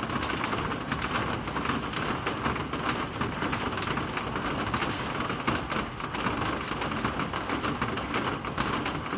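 Steady rain falling, a constant hiss with many fine drop ticks.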